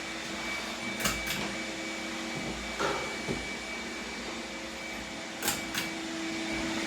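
Vacuum cleaner running steadily, with a few light clicks and taps over it.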